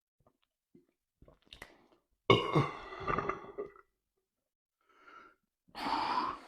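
A man's loud, long burp starting suddenly about two seconds in and lasting about a second and a half, followed near the end by a breathy exhale.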